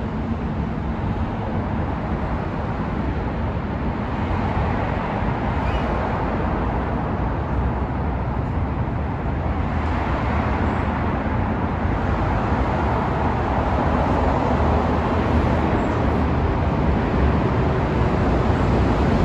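Rumble of an NS-04 metro train approaching through the tunnel, growing steadily louder as it nears the platform, over a steady low hum.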